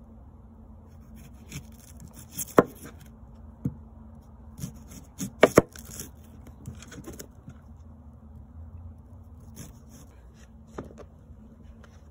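Chef's knife slicing and chopping an onion on a plastic cutting board: irregular sharp knocks as the blade cuts through and strikes the board, the loudest a quick pair about halfway through.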